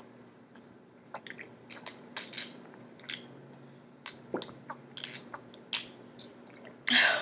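A person gulping a drink down fast from a can: a string of short wet swallowing and mouth clicks, roughly one or two a second, with a loud rush of breath near the end.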